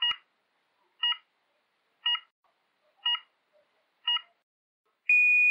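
Electronic start-countdown beeper: five short beeps exactly a second apart, then one long steady beep about five seconds in, the countdown and go signal of a race start.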